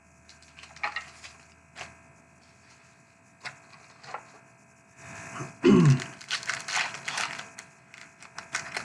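Scattered clicks and rustling from handling trading cards and their packs, then a denser burst of crinkling and crackling from about six seconds in. That burst opens with a brief low sound that drops in pitch and is the loudest thing heard.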